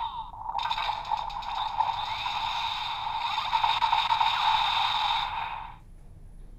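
DX Revice Driver toy belt playing an electronic sound effect through its small built-in speaker: a steady, noisy effect that starts about half a second in and fades out near the end as the belt's lights go off.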